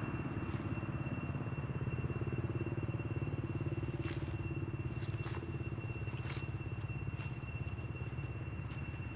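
Steady low engine rumble with a thin high whine above it, and a few short clicks about halfway through.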